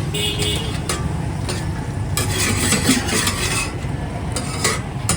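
Tikkis frying on a hot griddle, sizzling most strongly in the middle, with a few sharp clinks and scrapes of a metal spatula, over a steady low rumble of street traffic.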